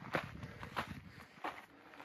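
A hiker's footsteps on a switchback trail: three steps at a steady walking pace, each a short crunch.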